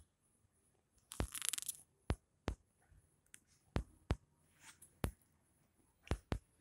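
Handling and play noise from a hand and a cat on cloth bedding: a short burst of rustling about a second in, and about ten sharp clicks at uneven intervals.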